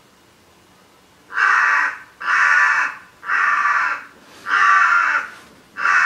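Crow cawing: five loud, harsh caws, about one a second, starting about a second in.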